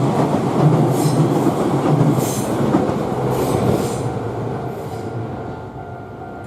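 Izuhakone Railway Sunzu Line train running past over a level crossing and moving away: a heavy rolling rumble from the wheels on the rails, with a few brief high squeals, fading steadily.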